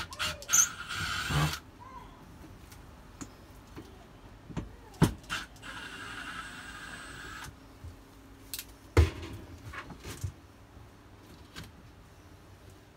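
Cordless drill-driver whirring in two short runs, about one second and then about two seconds long, as it backs out Phillips head screws from a bed-end rail. Clicks and knocks come in between, with a sharp knock about nine seconds in.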